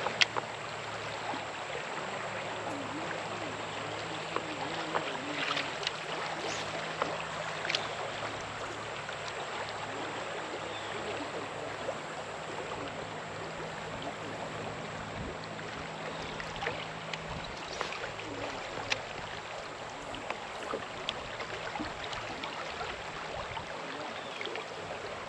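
Creek water running steadily over shallow shoals, a continuous rushing, with a few light clicks and taps scattered through it.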